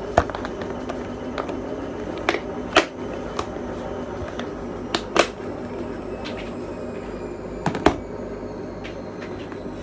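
Handling noises as homemade balloon stress balls and other small items are packed back into a storage box: scattered knocks and clicks, several in quick pairs, over a steady low hum.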